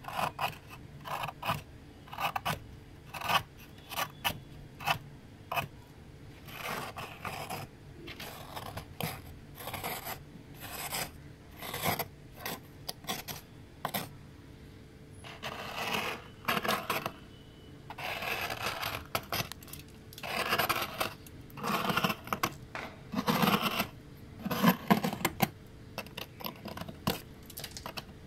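Metal spoon scraping and chipping thick frost off the inside walls of a freezer, in a run of short, irregular strokes, with longer strokes in the second half.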